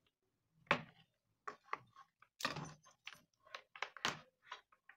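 Irregular clicks and knocks of plastic and metal parts being handled as an induction cooktop's copper coil assembly is lifted off its plastic housing.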